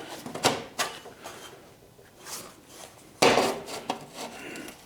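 Steel pieces being handled and set down on a metal table: a few sharp clanks and scrapes, the loudest a little over three seconds in.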